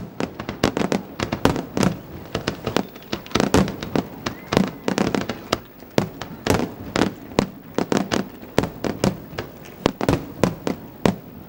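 Fireworks display: a rapid, irregular barrage of sharp aerial shell bangs, several a second, each trailing off in a short echo.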